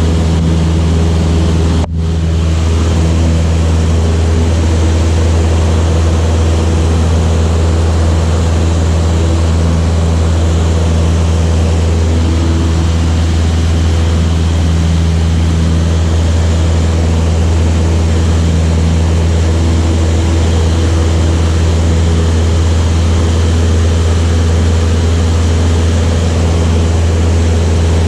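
Light propeller aircraft's piston engine running steadily with a strong low hum, with a brief dropout about two seconds in.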